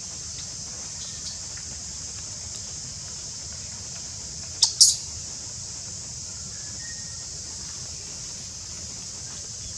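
Baby monkey squealing twice in quick succession about halfway through: two short, high-pitched squeaks.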